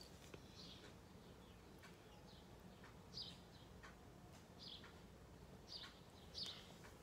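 Near silence with faint, scattered bird chirps, about six short high calls spread over several seconds.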